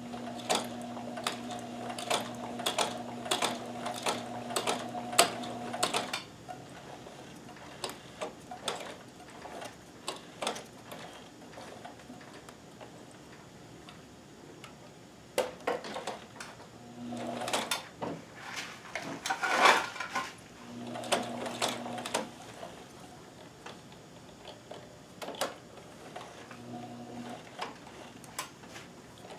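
Kenmore 158.1914 sewing machine stitching slowly with a walking foot fitted: a motor hum with an even clack of needle and foot strokes, about two to three a second, that stops after about six seconds. Further on come a few short starts of stitching, scattered clicks and a louder clatter about two-thirds of the way through.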